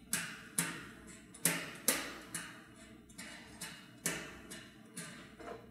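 Metal clicks and taps from the bolt and bracket being tightened on the stainless steel tank top, about two a second, each ringing briefly.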